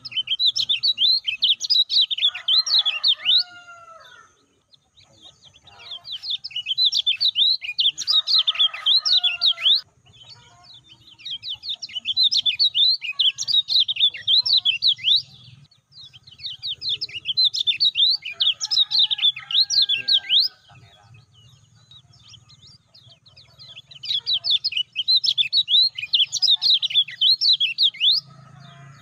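Kecial kuning, a yellow white-eye, singing its rapid high chattering song in five bursts of about three to four seconds each, with short pauses between. Fainter, lower whistled notes sound under some of the bursts.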